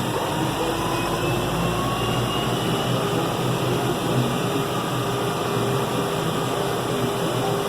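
John Deere 6105M tractor's diesel engine running steadily on the move, heard from inside the cab with the cab fan blowing and a steady faint whine.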